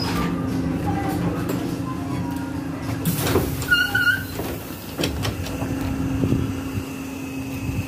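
BTZ 5276.04 trolleybus standing at a stop with its doors open, a steady electrical hum running under the noise. About three seconds in there is a loud burst of compressed-air hiss with door clatter, followed by a short high chirp and a few knocks.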